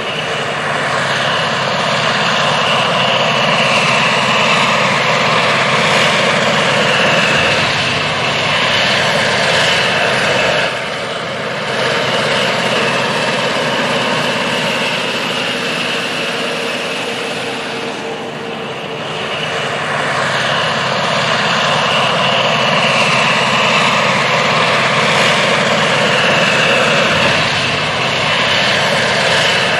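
John Deere 9630T track tractor's six-cylinder diesel engine running hard with a high whine over it. It eases off briefly about 11 seconds in and again around 18 seconds, then builds back up each time.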